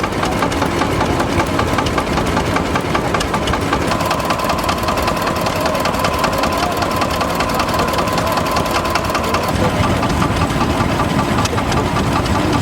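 An engine running steadily with a rapid, even knocking beat. A faint steady whine sounds over it for a few seconds in the middle.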